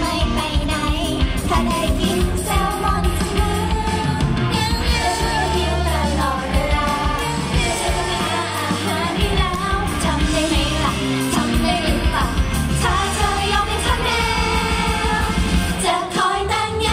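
Live pop song over stage loudspeakers, with several young women singing into handheld microphones over loud amplified music with a steady beat.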